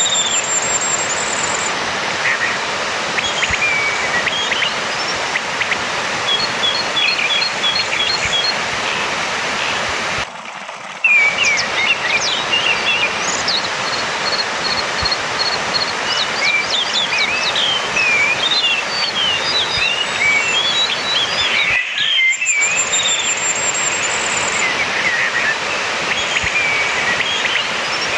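Orange-headed thrush song: a long run of varied whistled phrases, chirps and high trills over a steady hiss of background noise, with two short breaks, about ten and twenty-two seconds in.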